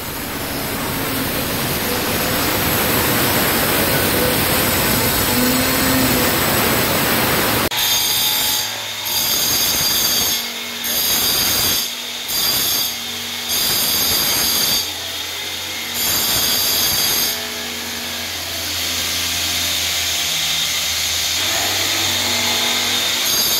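Angle grinder with a cutting disc running steadily as it cuts through a granite countertop slab. After about eight seconds it gives way to a jigsaw cutting a wooden board in repeated short bursts, starting and stopping every second or so.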